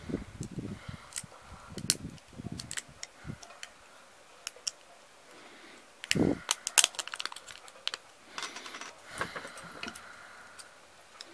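Handling sounds of a stethoscope's metal chest piece being worked by hand: scattered small clicks and taps as a cut replacement diaphragm disc is pressed into it, a quick run of sharper clicks about six seconds in, and a brief rustle of thin sheet a couple of seconds later.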